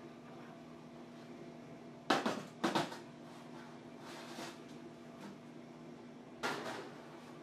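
A baby's bare feet thumping on a kitchen countertop as he is lifted and set down: three quick thumps about two seconds in and one more near the end, over a faint steady hum.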